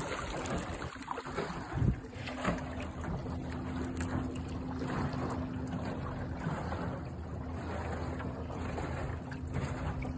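Minn Kota Endura Max 45 12-volt electric trolling motor running at full speed with a steady hum, over water rushing past the small aluminium hull and wind on the microphone. A couple of sharp knocks come about two seconds in.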